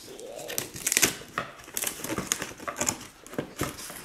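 Cardboard toy box and its packaging being handled, a run of irregular crinkles, rustles and small knocks.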